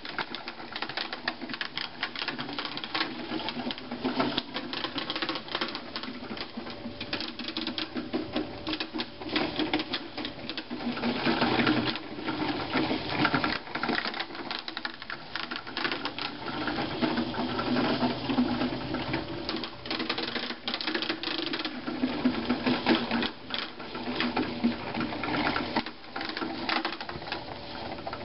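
Small walk-behind broadcast spreader pushed over bare soil while spreading grass seed, its wheel-driven spinner gearing giving a rapid, continuous clicking rattle. The rattle is louder through the middle stretch.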